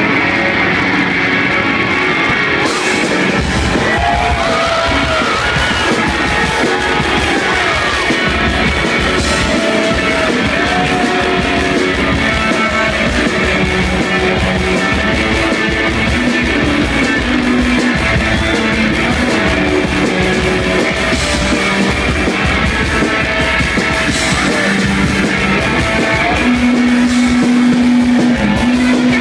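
Live rock band playing loud noise rock: electric guitar over bass and drums, with a steady beat throughout.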